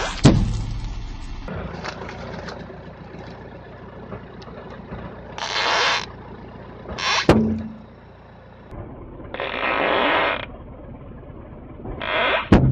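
A balloon and a crunchy object being crushed under a slowly rolling car tyre: four noisy squeezing bursts of about a second each, with a couple of sharp clicks.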